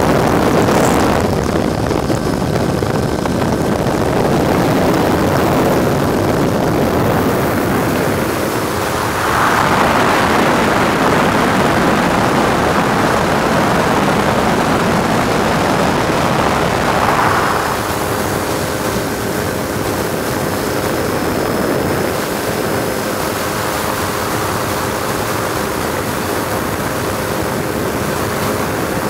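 Helicopter running steadily, heard from aboard, with rotor and wind noise. A louder rushing stretch runs from about ten to seventeen seconds in.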